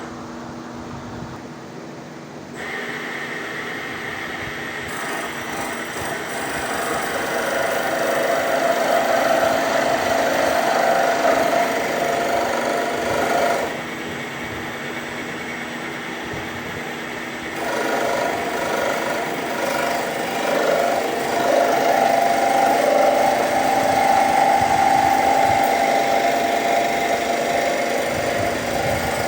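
A CNC machine running steadily with a machining hum. It works harder and louder for two long stretches, with a quieter spell of a few seconds about halfway through.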